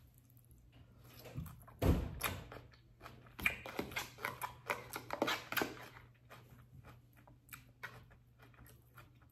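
Close-miked sounds of handling and eating a messy sandwich: a dull thump about two seconds in, then a couple of seconds of quick clicks and crackles, thinning to scattered clicks.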